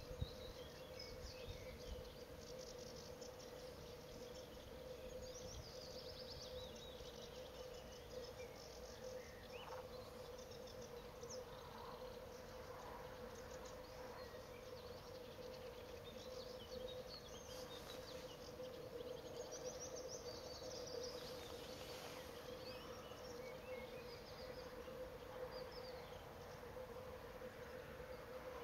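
Faint outdoor ambience of scattered high, short bird chirps and calls over a steady low hum.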